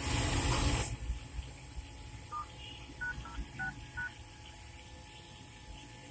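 A loud burst of hiss in the first second, then five short dual-tone keypad beeps from a smartphone's dialer, spaced unevenly about half a second apart, as keys are pressed.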